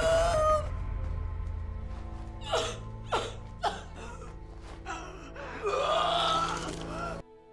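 Horror-film soundtrack: a low, tense music bed under a woman's sharp gasps and a strained, wavering cry. It all cuts off suddenly near the end.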